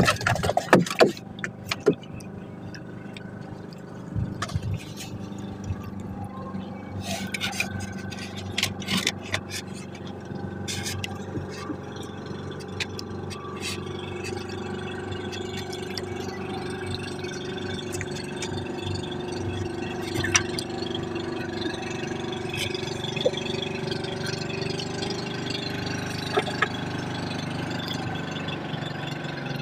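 Steady hum of a boat engine running, with scattered clicks and knocks from fishing line and hooks being handled, most of them in the first half.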